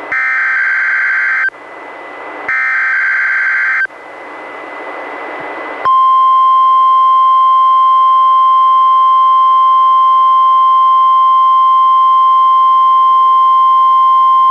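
NOAA Weather Radio Required Weekly Test. The last two bursts of the SAME digital alert header play, a two-tone data warble of about a second and a half each, with radio hiss between and after them. About six seconds in, the steady 1050 Hz warning alarm tone starts and holds.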